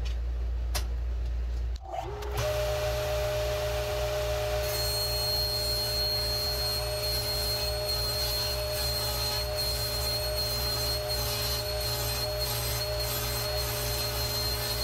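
A low steady machine hum, then a table saw motor spinning up about two seconds in and running at a steady pitch. From about five seconds in the blade rips a long baseboard lengthwise, adding a steady hiss and a high whine that lasts to the end.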